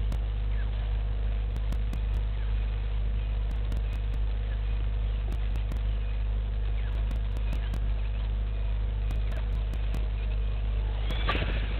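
Bushveld ambience: faint, scattered bird chirps over a steady low hum, with one brief louder sound near the end.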